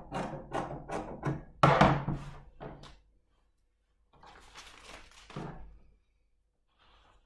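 Scissors snipping through fabric and a paper pattern on a tabletop in quick, even cuts, about three a second, with one loud thunk a little under two seconds in as the scissors are put down on the table. Then a softer rustle of paper and fabric being handled.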